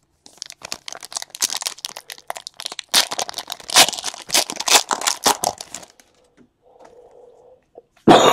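Foil wrapper of a trading card pack torn open and crumpled by hand: a dense run of crinkles, cracks and rips that dies away about six seconds in.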